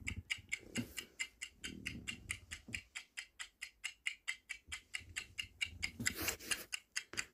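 Ticking-clock countdown sound effect, an even tick about four times a second, with a brief swell of hiss about six seconds in.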